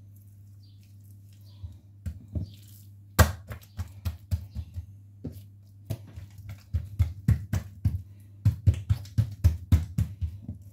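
Hands patting and slapping a ball of yeasted dough flat on a tiled surface: a run of sharp pats starting about two seconds in, sparse at first, then quickening to about three a second in the second half, with the loudest single slap about three seconds in.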